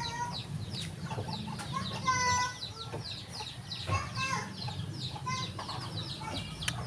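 Chickens clucking, over a dense run of short, high-pitched peeps several times a second, with a steady low hum underneath.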